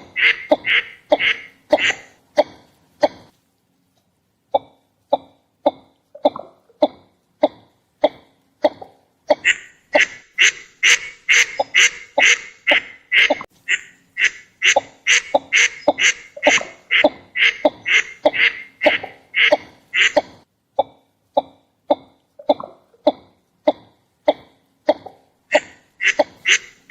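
Northern shoveler duck calling: short, clipped calls repeated about twice a second. They pause briefly about three seconds in, come back quieter, grow louder through the middle, then fall quieter again near the end.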